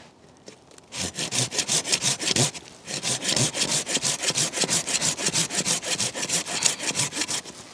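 Hand saw cutting through the base of a small maple stem, in fast back-and-forth strokes that start about a second in, break off briefly about two and a half seconds in, and stop just before the end.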